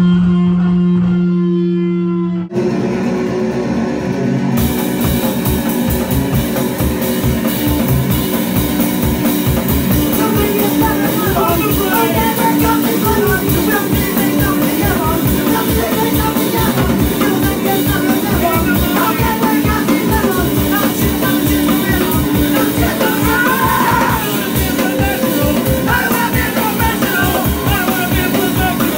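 Live punk band playing: a held low tone for the first couple of seconds, then the drum kit and electric guitars come in together with a steady beat.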